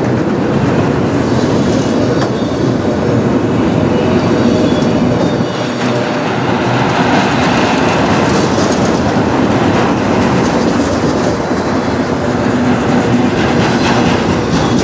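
Freight train of autorack cars passing at close range: loud, steady noise of steel wheels rolling over the rails.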